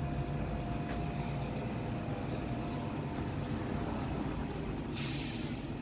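A steady low rumble of distant engine noise, with a brief splash of water in the toy bin about five seconds in.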